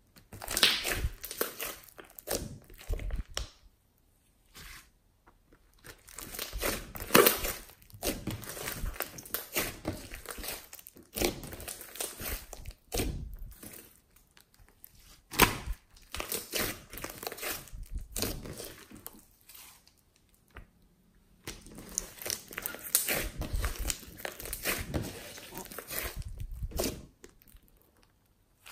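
Glossy slime mixed with clay and makeup being squeezed, stretched and pressed by hand: sticky squelching and crackling in bursts, with a few sharp snaps and short pauses between handlings.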